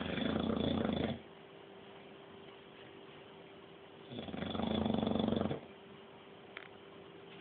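Snoring in sleep: one long snore fading out about a second in, and another about four seconds in that lasts about a second and a half, over a faint steady hum.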